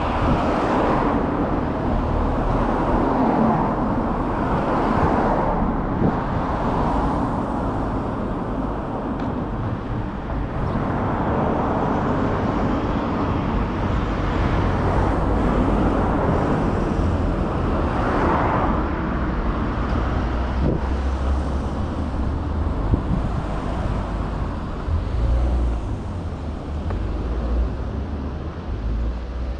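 Road traffic on a residential street: several cars passing one after another, each a swelling and fading rush of tyres and engine over a steady low rumble.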